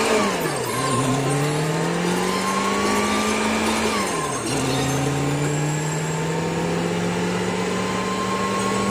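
Road vehicle's engine pulling through the gears. Its pitch drops with a gear change at the start, climbs slowly, drops again with an upshift about four seconds in, then climbs steadily once more.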